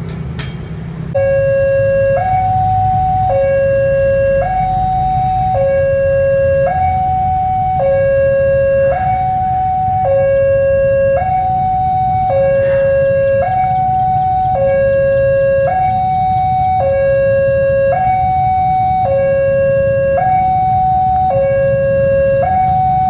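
Electronic two-tone railway warning alarm starting abruptly about a second in, alternating steadily between a low and a high tone, each held about a second: the signal that a train is approaching. A low rumble runs underneath.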